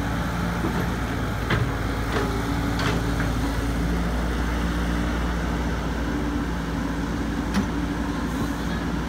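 Caterpillar E120B hydraulic excavator's diesel engine running steadily as the machine swings and moves its boom, with a few short sharp knocks, three in the first three seconds and one more near the end.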